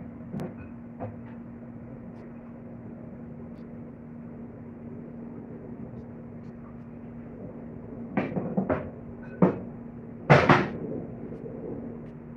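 Kitchen clatter of cookware and utensils: a few sharp knocks and bangs, loudest as a pair about ten seconds in, over a steady low hum.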